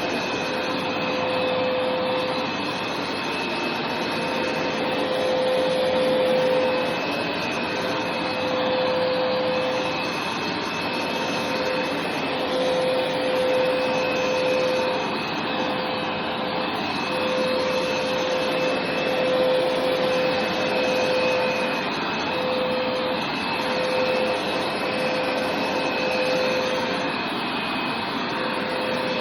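Hoover carpet cleaner running continuously over carpet: a steady motor whine over a constant rushing of air.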